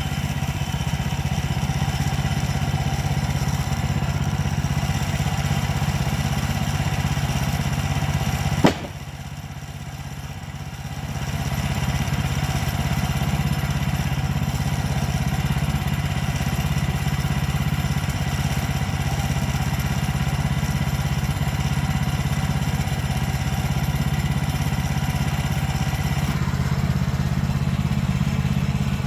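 Woodland Mills portable bandsaw sawmill's gas engine running steadily. About nine seconds in there is a sharp click, then the sound drops for two or three seconds before it runs steady again.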